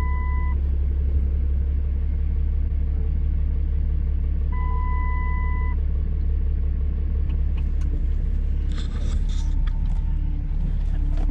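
Cummins diesel truck engine running with a steady low rumble. A freshly replaced power steering line leaves no whine or other odd noise. A brief steady high tone sounds twice, near the start and again about five seconds in.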